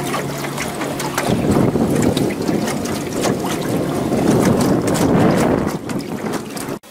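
Wind buffeting the microphone on a small aluminum boat, with water slapping against the hull in many short clicks and splashes.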